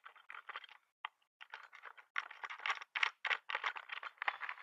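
Metal bike-rack parts and a spanner being handled during assembly: an irregular run of clicks and rattles that gets busier about halfway through.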